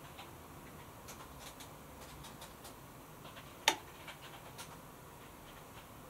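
Faint, irregular ticks and one sharper click a little past halfway, over a low steady background.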